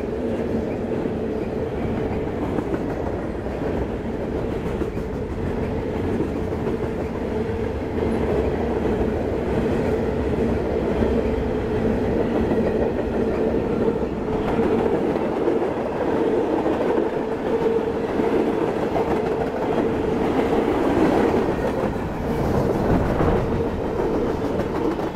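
Freight train cars of a sand train, mostly covered hoppers, rolling past close by. Their steel wheels give a steady rumble with clickety-clack over the rail joints, and a steady tone runs underneath.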